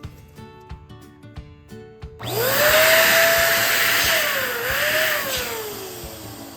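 An electric balloon pump starts about two seconds in: its motor whines up quickly to a steady pitch under a loud rush of air as it inflates a balloon. Near the end the pitch sinks and the sound fades as the motor winds down.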